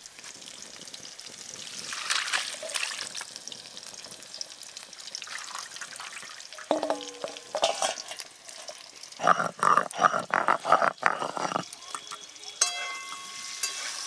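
Vegetables frying in oil in a wok with a steady sizzle. A few seconds past the middle comes a louder spell of pouring and splashing water as soaked salted hilsa pieces are lifted out of their water and drained in a bamboo basket.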